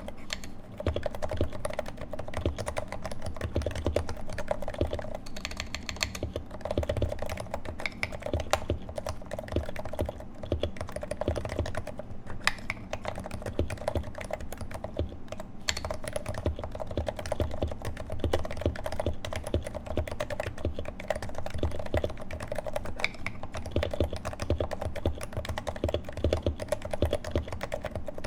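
Steady, dense typing on a Leopold FC660C Topre keyboard with 55 g electrostatic-capacitive rubber-dome switches, its sliders swapped for lubed Novatouch sliders with Silence-X rings and fitted with GMK keycaps, in a Norbauer Heavy-6 custom case.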